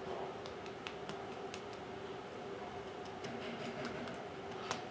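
Light, irregular ticks and taps as a small ink pad is dabbed against a 3D-printed TPU rubber stamp on an acrylic block, with one sharper click near the end. A faint steady hum runs underneath.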